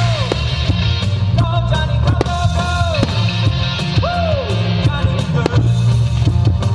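Loud rock music with singing, played over a fireworks display, with many sharp firework bangs and crackles cutting through it.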